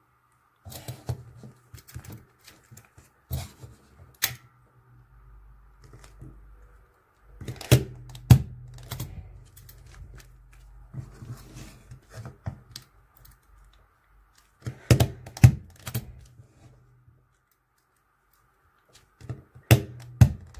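A desk stapler clacking down several times as it staples a paper header card onto a clear plastic bag, the loudest strikes coming as close pairs of sharp clicks. Softer handling noises come between the strikes.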